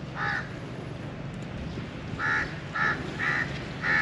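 A bird calling in short, repeated calls: one near the start, then four more about half a second apart in the second half, over a low steady background rumble.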